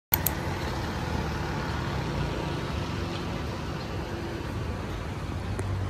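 Street traffic ambience: a steady hum and rush of road traffic with car engines, opening with a sharp click right at the start.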